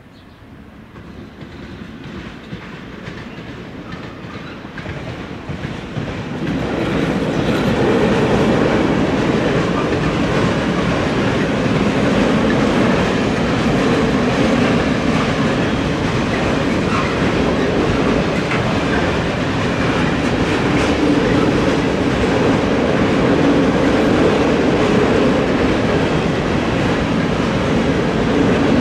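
Freight train approaching, growing louder over the first six or seven seconds. A long string of open-top freight wagons then rolls past with a steady rumble and wheel clatter on the rails.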